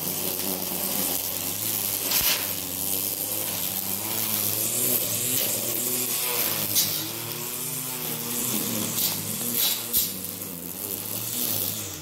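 Electric string trimmer running with a steady buzzing whine as it cuts grass, with a few sharp ticks scattered through.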